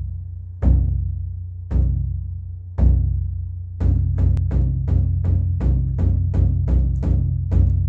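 Large rope-tuned drum struck with sticks: deep single strokes about a second apart, then, about four seconds in, a quick steady beat of roughly three strokes a second, with a low ring between strokes.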